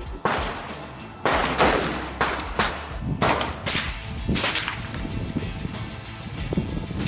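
A string of gunshots at a shooting range, irregularly spaced, each sharp crack followed by an echoing tail.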